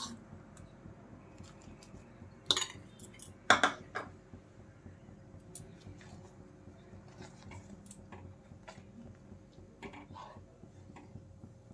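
A spoon knocking and scraping against a metal pan while powdered sugar is stirred into boiling milk. There are two sharper knocks about a second apart a few seconds in, then lighter taps and clicks.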